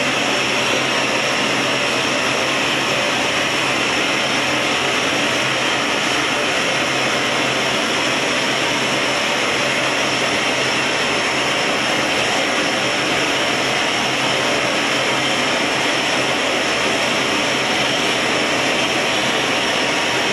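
Steady, loud rushing of gas burners: the glass studio's glory hole firing, with a propane hand torch heating the glass at its mouth. A faint steady hum runs under it.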